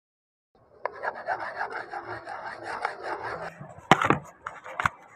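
Wooden stir stick scraping round a plastic cup as epoxy resin is mixed, a quick rhythmic scraping for about three seconds, followed by two sharp knocks as the cup and mold are handled.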